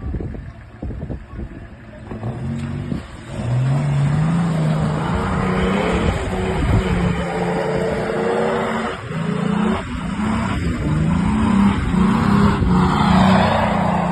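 Off-road 4x4's engine revving hard under load, its pitch rising and falling again and again, with a rushing noise of spinning tyres. It grows louder about three and a half seconds in.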